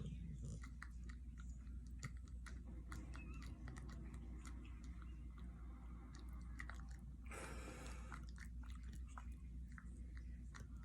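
Sleeping Rottweiler making faint wet mouth clicks and lip-smacking, with one short breathy puff about seven seconds in, over a steady low hum.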